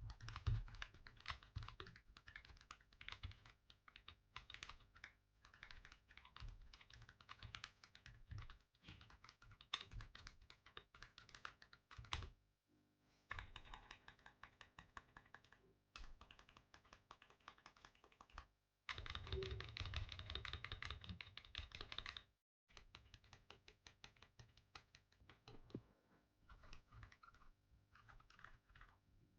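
Akko 5075B mechanical keyboard being typed on: rapid runs of key clacks in several stretches, broken by brief pauses.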